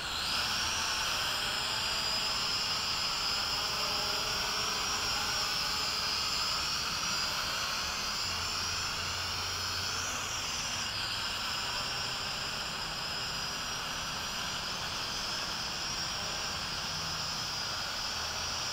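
Hubsan H502E quadcopter's motors and propellers whining steadily in flight, the pitch wavering as it is steered, with a brief shift about halfway through. It grows a little quieter in the second half as it flies off down the street.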